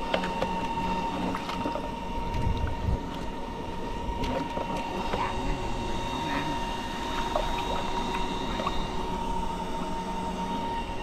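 Electric fishing rig running with a steady high whine, over splashing water and scattered light knocks from the boat and pole.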